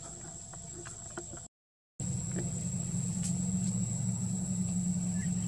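Faint outdoor background with a few light ticks, then the sound cuts out for about half a second. After that comes a steady low engine hum, like a motor vehicle idling nearby, with a steady high whine above it.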